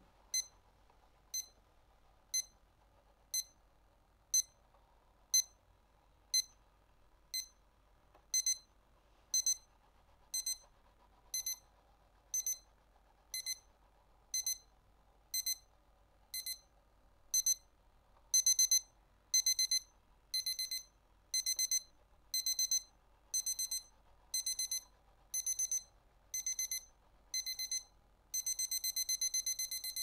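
Citizen 8RZ202-003 digital alarm clock sounding its electronic beep alarm: a high-pitched beep about once a second, short at first, then longer from about eight seconds in, louder and pulsing from about eighteen seconds, and turning into continuous rapid beeping near the end, the alarm stepping up in stages the longer it rings.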